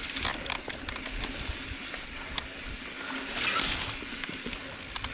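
Mountain bike ridden down a rough dirt singletrack over roots, with a low rumble from the tyres and scattered rattles and knocks from the bike. A short rushing hiss comes a little past halfway.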